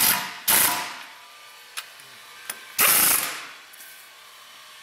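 Power tool spinning a bolt in two short bursts, about half a second in and again near three seconds in, with a couple of faint clicks between: bolting the transmission to the engine block.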